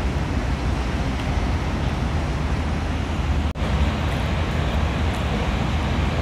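Steady outdoor background rumble, heaviest in the low end, that drops out for an instant a little past halfway.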